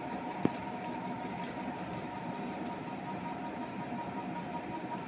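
Steady background hum and hiss, with one sharp click about half a second in.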